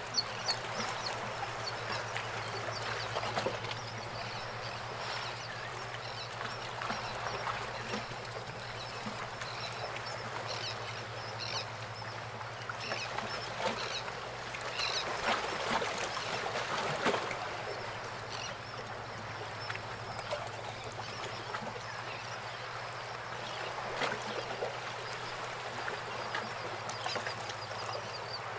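Bay water lapping and trickling around pier pilings, with small irregular splashes and a few faint bird calls over a steady low hum.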